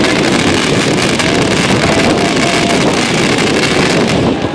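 Firework fountain hissing and crackling steadily as it sprays sparks; the highest part of the hiss falls away near the end.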